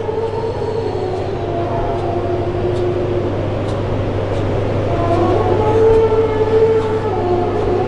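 Aquarium hall ambience: a steady low hum under sustained, drawn-out tones that step to new pitches every second or two.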